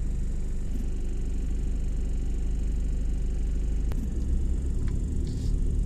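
Low, steady rumble of a car heard from inside the cabin, engine and road noise; it turns rougher and more uneven about four seconds in.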